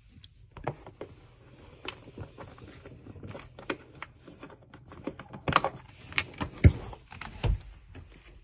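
Irregular clicks and knocks from the hard plastic parts of a Litter-Robot 4 being handled, with a few louder knocks between about five and seven and a half seconds in.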